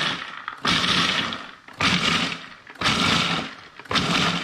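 Food processor pulsed in short bursts about once a second, chopping roasted salted cashews. Each pulse starts loud and fades before the next.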